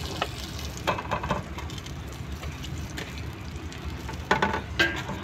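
Sautéed meat sizzling lightly in a stainless pot as thick tomato spaghetti sauce is squeezed onto it from a plastic pouch. A few brief clicks and rustles come about a second in and again near the end.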